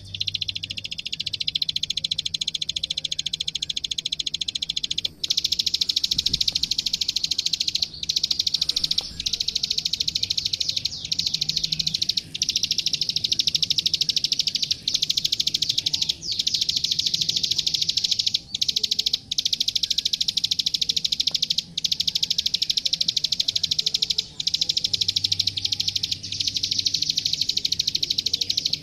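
Ciblek sawah (klik klik) songbird singing a long, very fast rapid-fire string of high clicking notes, broken by brief pauses every few seconds.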